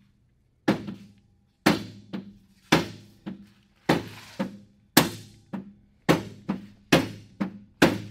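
A rubber mallet striking the dragster's front chain sprocket on its jackshaft about fourteen times, a little under two blows a second, each a sharp knock with a short metallic ring, tapping the sprocket along the shaft to center the chain.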